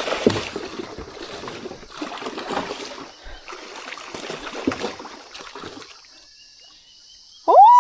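Water splashing and trickling in irregular spurts, dying down about six seconds in. A person's loud, drawn-out 'oh' begins near the end.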